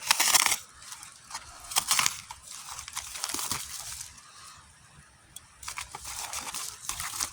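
Packaging being torn and opened by hand, rustling and crinkling in several short bursts.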